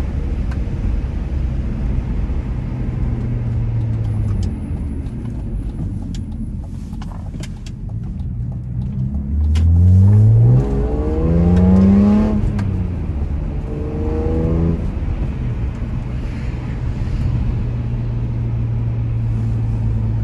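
BMW M3 engine, heard from inside the car, cruising with a steady low hum. About halfway through it revs up hard through the gears in two quick rising pulls, then gives a shorter rev before settling back to a steady cruise.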